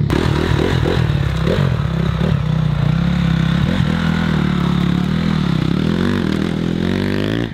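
Motocross bike engine running under throttle as the rider pulls away and rides off, the revs rising and falling and then climbing sharply near the end.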